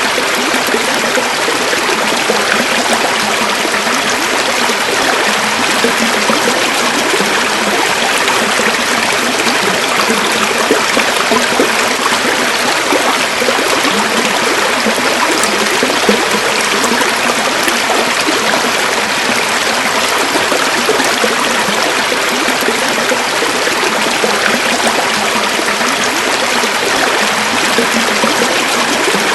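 River water flowing over stones: a steady, even rushing and babbling.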